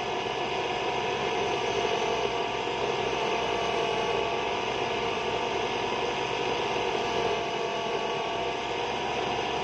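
A power tool running steadily under load, a constant noisy drone with a steady whine in it.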